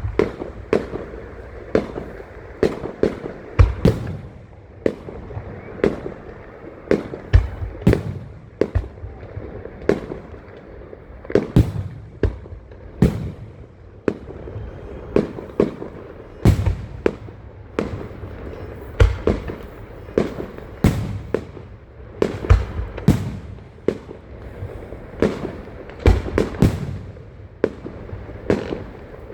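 Fireworks show: aerial shells bursting one after another in an irregular volley, sharp bangs with short echoing tails, some in quick clusters.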